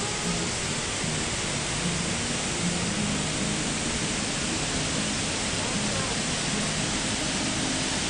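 Large waterfall, about 23 metres high, pouring into its plunge pool: a steady, unbroken rush of falling water.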